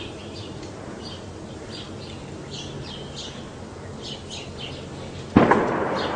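Small birds chirping in short bursts over a low background rumble. About five seconds in, a sudden loud explosion from the shelling goes off and its rumble dies away slowly.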